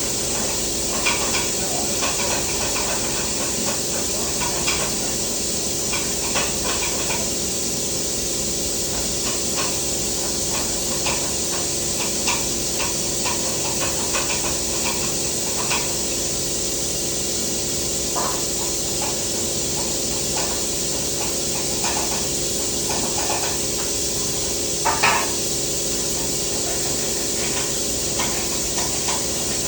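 Welding arc hissing steadily, with scattered short crackles, the loudest about three-quarters of the way through.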